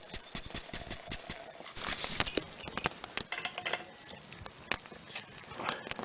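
Quick, irregular clicks and taps of a camp pot, insulated mug and drink pouch being handled while an instant coffee and hot chocolate mocha is made.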